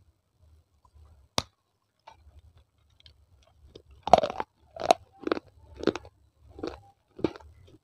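A small piece of baked clay snapped in one sharp bite about a second and a half in. From about four seconds on it is crunched between the teeth in a steady run of loud chews, picked up close by a lapel microphone.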